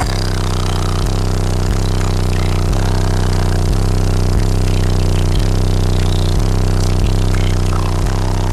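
Wall of car-audio subwoofers playing deep bass at high volume: heavy, steady low notes that shift in a repeating pattern about every two-thirds of a second.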